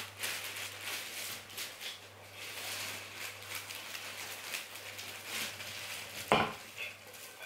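Rustling and light scraping as a rigid gift box and its packaging are opened and reached into, with one sharp knock about six seconds in.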